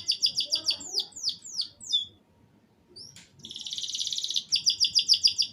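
Domestic canary singing in short phrases. It starts with rapid repeated high notes and trills and a few falling whistled notes, goes quiet briefly about two seconds in, then sings a fast buzzing roll followed by another run of quick repeated notes.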